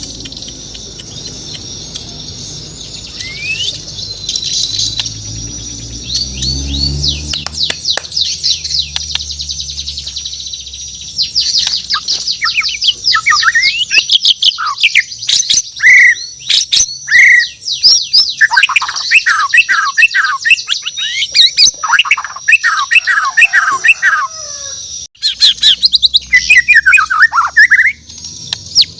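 A white-rumped shama (murai batu, Borneo type) singing: a long run of rapid, varied whistles, chirps and sweeping notes. It is softer at first and becomes loud and dense after about eleven seconds, with a short pause near the end.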